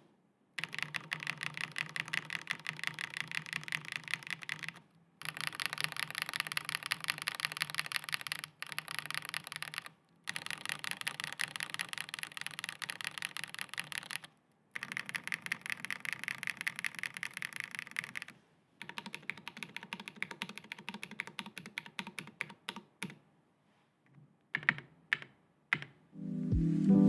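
Fast typing on a custom mechanical keyboard, a Neson 700E with a polycarbonate plate, factory-lubed Chosfox x JWK Voyager switches and GMK keycaps. The strokes come in rapid runs of a few seconds with short pauses between, then thin out to scattered single keystrokes near the end.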